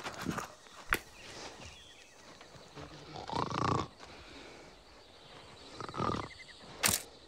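A man imitating a tiger's growling roar with his voice, twice: a throaty cry about three seconds in and a shorter one about six seconds in. A sharp click comes just before the end.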